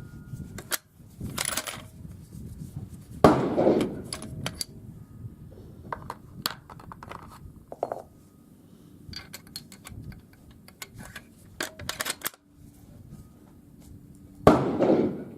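Two shots from a bolt-action Ruger Precision Rifle in 6.5 Creedmoor firing subsonic handloads without a suppressor, one about three seconds in and one near the end. Between them, metallic clicks and clatter of the bolt being worked and the spent case coming out.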